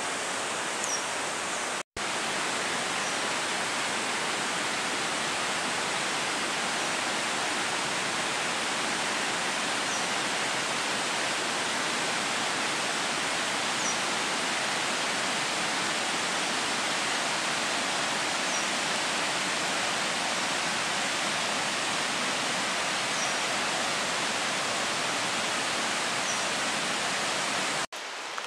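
Steady rush of running water, with faint short high chirps of a small bird every few seconds. The sound cuts out for an instant about two seconds in and again just before the end.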